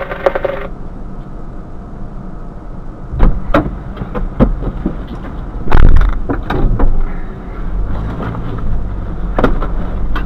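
Fire engine's diesel engine idling with a steady low rumble. A series of knocks and clunks comes from about three seconds in, the loudest around six seconds in.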